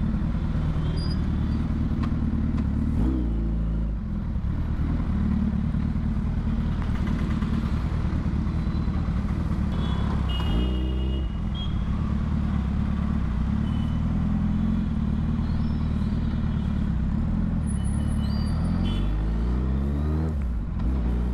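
Suzuki Hayabusa's inline-four engine idling low and steady in slow traffic. There are short throttle blips about three and ten seconds in, and the revs rise as the bike pulls away near the end.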